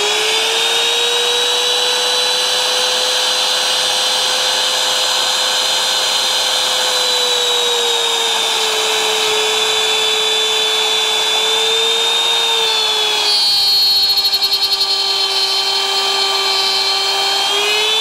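Compact router with a keyhole bit running at full speed, a steady high whine. Its pitch sags a little as the bit plunges and slides through the wood cutting a keyhole hanging slot, sags most and turns rougher for a few seconds about three-quarters through under the heaviest cut, then climbs back near the end.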